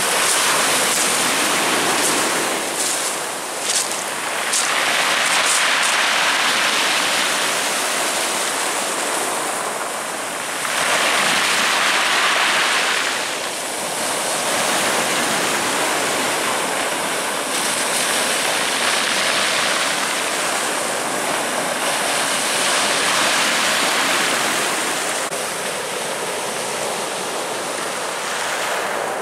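Black Sea surf washing onto the beach, a loud hiss that swells and falls back about every six seconds as each wave comes in.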